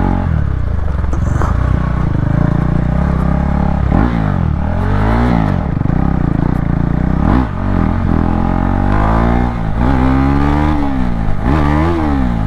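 KTM Duke 390's single-cylinder engine being ridden, its revs rising and falling several times as the rider opens and closes the throttle.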